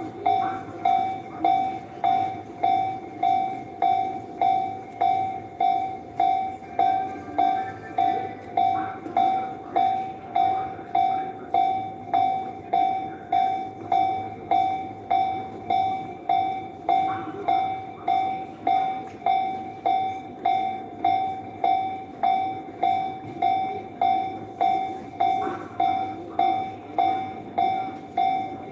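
Japanese level-crossing electronic warning bell ringing steadily, about three dings every two seconds, while a train rumbles past the closed crossing.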